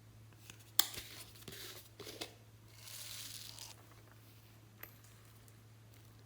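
Hands-on slime-making noises: a sharp click about a second in, a few crinkling, tearing sounds, then about a second of hissing rustle, over a steady low hum.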